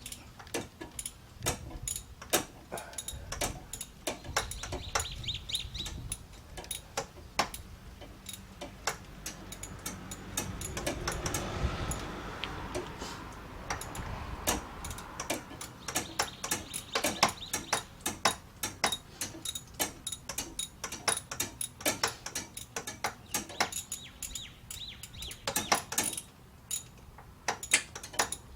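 A 3/8-inch ratchet clicking in irregular runs as it slowly winds a tight spark plug out of an LS1 V8's cylinder head. A swell of broad noise comes for a few seconds near the middle.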